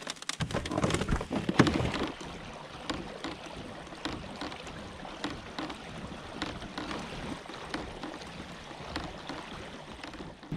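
Fishing kayak moving through calm water: a steady swish of water along the hull, with scattered light knocks and clicks. The knocks are heavier in the first two seconds as it is launched from the ramp.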